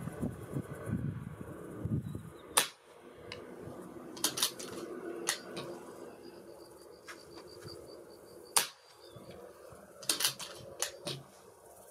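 Reximex Throne Gen-2 .177 PCP air rifle firing twice, sharp cracks about six seconds apart, each followed by a few quieter mechanical clicks. Wind rumbles on the microphone in the first couple of seconds.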